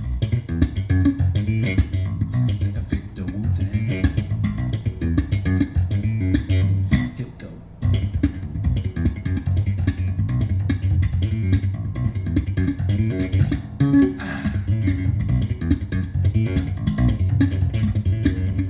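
Music with a prominent bass guitar and plucked guitar, played back through a car audio system's DLS RCS6.2 component speakers. The music dips briefly about eight seconds in.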